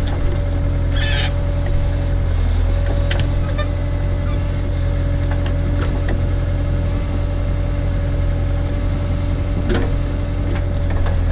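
Case/Davis D100 backhoe's tractor engine running steadily under load, with a thin steady whine over it and a few brief knocks and scrapes as the bucket works at a tree stump.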